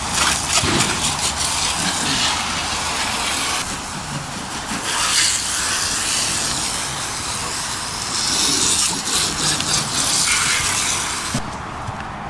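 Water spraying from a hose onto a car's bodywork in several long stretches, with short breaks, stopping about eleven seconds in.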